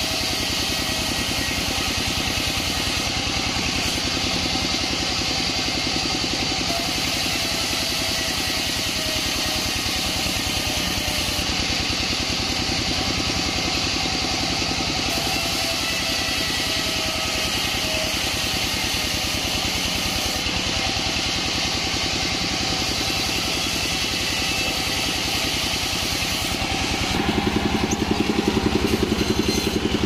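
Engine-driven vertical band sawmill running steadily as a waru plank is pushed through the blade, a continuous mechanical drone. Near the end the sound turns louder and heavier.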